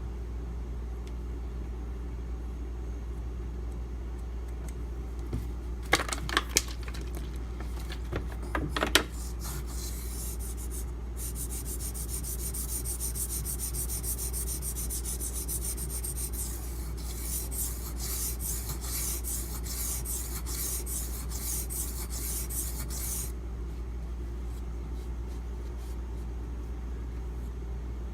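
A knife blade being drawn back and forth across a soaked coarse 500-grit Beston water stone, a fast, even rasping scrape, to raise a burr along the whole edge. A couple of sharp knocks come before the strokes begin, and the strokes stop a few seconds before the end.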